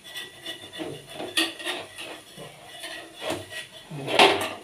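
Metal spatula scraping and tapping against a flat griddle pan as it is slid under a cooking naan: a string of short clicks and scrapes, with a louder knock about four seconds in.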